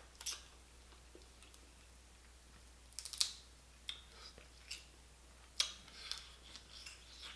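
A man eating boiled blue crab, close-miked: scattered sharp clicks, smacks and crackles of chewing and of crab shell being picked apart, the loudest cluster about three seconds in.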